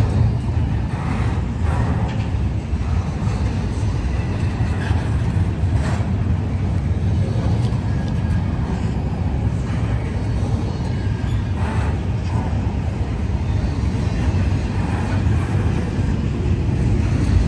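Intermodal freight train rolling past, a steady low rumble with a few faint clicks.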